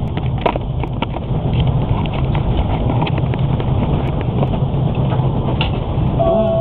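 Passenger train running at speed, heard from inside the carriage: a steady loud rumble with a few faint clicks.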